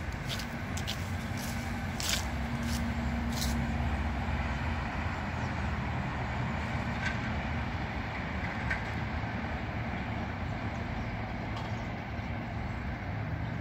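A large flock of small birds lifting off a lawn and wheeling overhead: a steady rush of many wings over a low traffic rumble, with sharp bird calls in the first few seconds.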